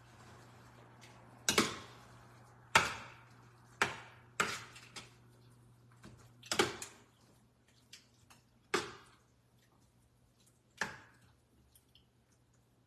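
Utensils knocking against cookware: about seven sharp knocks, irregularly spaced, each ringing briefly, over a faint low steady hum.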